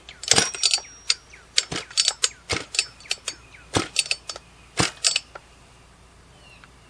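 Husqvarna 44 chainsaw's recoil starter being pulled, giving irregular sharp metallic clicks and clinks that stop about five seconds in. The engine does not catch and run, and the saw has a lot of compression.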